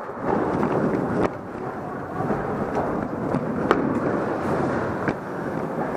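Continuous rustling and rumbling handling noise from a body-worn camera moving with a player at speed, with three sharp clicks spread through it.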